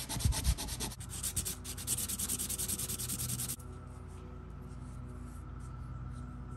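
A small piece of PVC pipe being sanded by hand on sandpaper: rapid back-and-forth scratchy strokes that stop abruptly a little past halfway. A faint steady hum is left after the strokes stop.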